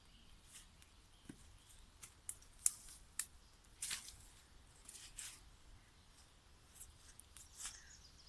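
Campfire crackling: irregular sharp pops and snaps of burning wood, a few of them louder, over a faint steady background.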